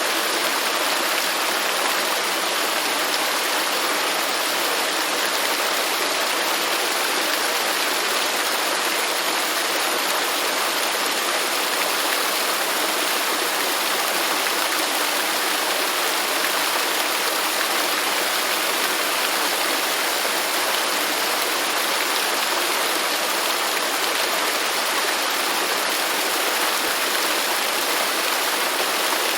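Waterfall: water falling and rushing in a steady, unbroken hiss with no change in level.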